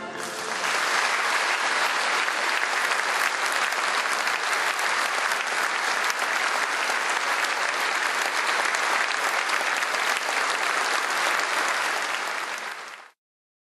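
Audience applauding steadily; the applause fades quickly and cuts off near the end.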